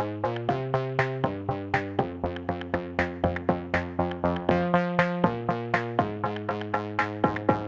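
Electronic background music: synthesizer chords over a steady drum-machine beat of about four hits a second.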